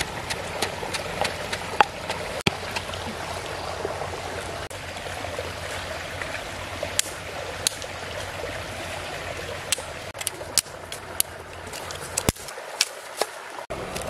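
Steady rush of a shallow stream running over stones. Over it, a few sharp knocks in the first two seconds from a wooden pestle striking a clay mortar, then scattered sharp clicks later on.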